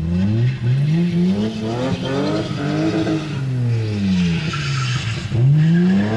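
BMW estate car doing a drift or burnout, its engine revs rising and falling several times over the squeal of spinning, sliding tyres. The tyre squeal is strongest a little past the middle.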